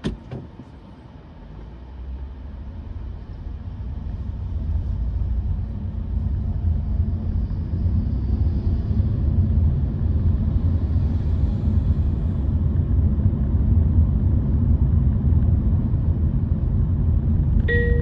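Low road and tyre rumble heard from inside a Honda Vezel e:HEV hybrid, building over the first few seconds as the car gathers speed and then holding steady. A short knock at the very start, and a brief beep near the end.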